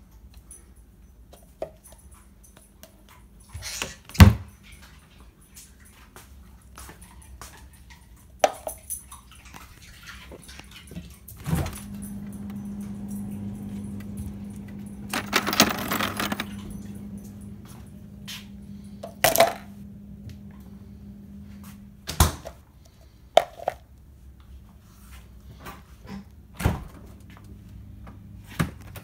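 Kitchen cabinet and refrigerator doors being opened and closed, with sharp knocks and clicks, the loudest about four seconds in. A steady low hum comes in about a third of the way through and stops about three-quarters through, with a short rustle in the middle of it.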